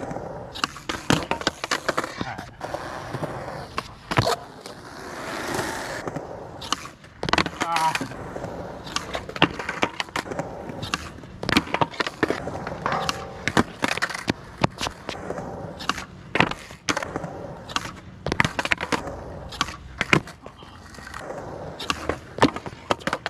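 Skateboard on concrete: the wheels roll with a steady rumble, broken by many sharp cracks and clacks as the board is popped, lands and hits the ground during trick attempts.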